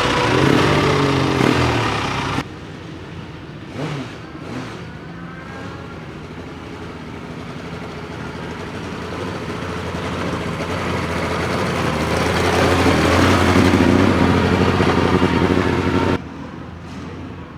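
Classic racing sidecar outfits passing at speed, in separate edited shots. One machine passes loudly and is cut off about two seconds in. Another then approaches, growing steadily louder for several seconds, and is cut off near the end.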